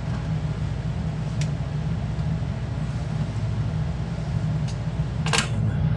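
Steady low mechanical drone, with a few light metallic clicks and a louder clank about five seconds in, as a wrench works a bolt under the car.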